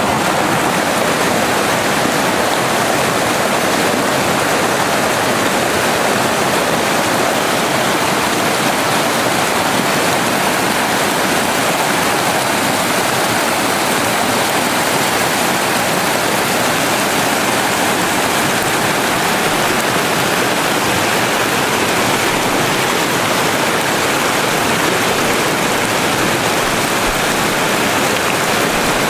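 Rushing river water pouring over shallow rapids: a steady, loud, even rush.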